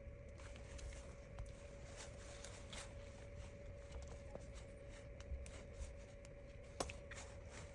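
Faint scattered clicks and light taps of small phone parts and repair tools being handled, the sharpest about seven seconds in, over a steady faint hum.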